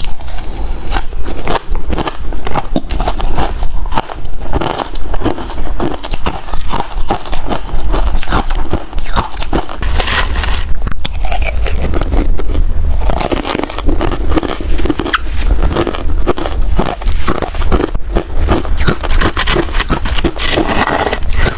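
Ice cubes being bitten and chewed close to the microphone: a dense, continuous run of sharp cracks and crunches.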